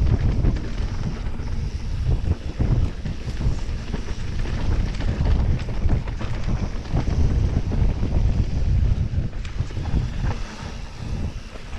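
Wind buffeting the microphone of a mountain bike descending a dirt trail at speed, over a steady low rumble from the Fezzari La Sal Peak 2.0's tyres on the dirt, with frequent short knocks and rattles as the bike runs over rough ground.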